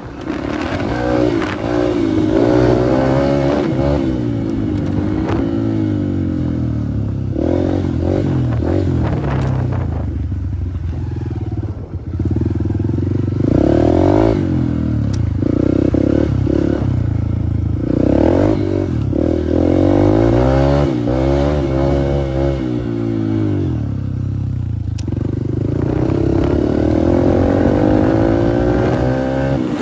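Dirt bike engine being ridden hard, its pitch repeatedly climbing as the throttle opens and dropping off between bursts, with a short lull about twelve seconds in.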